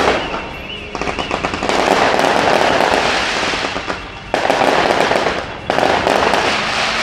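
Fireworks going off in volleys of crackling bursts, a new volley starting suddenly four times, each thick with rapid crackle.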